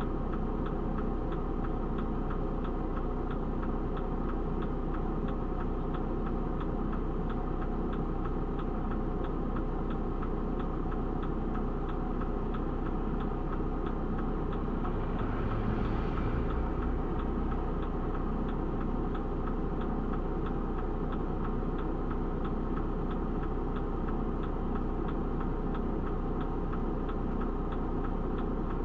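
Delivery van's engine idling while it stands still, with a steady quick ticking over it. About halfway through, a car passes close by and briefly rises above the idle.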